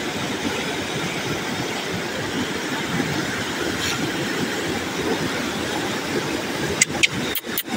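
Fast mountain river rushing over boulders in a steady, even rush of water. A few sharp clicks come near the end.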